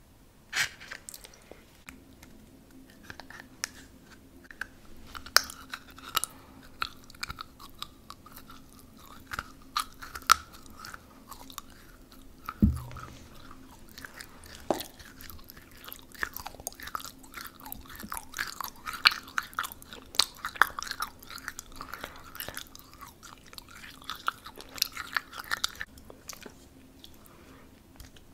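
Close-miked chewing and biting: crisp crunches and wet mouth clicks, again and again, as a shoe-shaped treat is eaten right at the microphone. A single dull thump comes about halfway.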